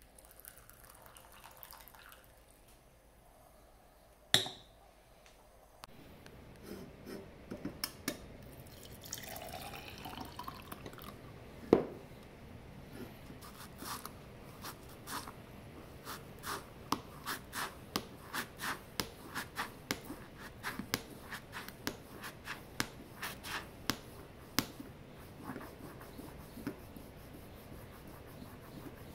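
A French press plunger is pumped up and down in milk to froth it, giving a steady run of clicks and sloshes about two a second through the second half. Before that there is a thin pour of coffee, a sharp clink of ceramic or glass, liquid poured into a vessel rising in pitch as it fills, and one loud knock.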